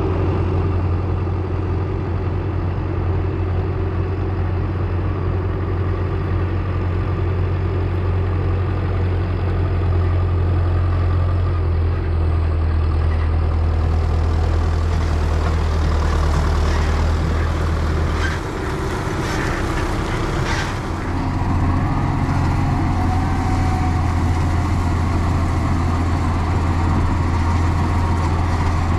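Diesel engine of farm machinery running steadily with a strong low hum. About two-thirds of the way through it dips briefly twice, with some short clatter.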